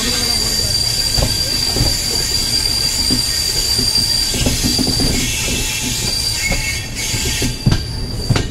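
Passenger train wheels squealing on the rails as the train runs slowly, heard from on board: a steady high-pitched squeal over the low rumble and irregular knocks of the running gear. A lower squeal joins about five seconds in, and there is a sharper knock near the end.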